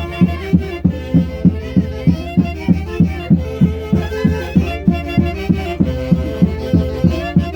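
Andean folk orchestra playing Santiago fiesta music: a violin leads over a steady, even drum beat of about two to three strokes a second.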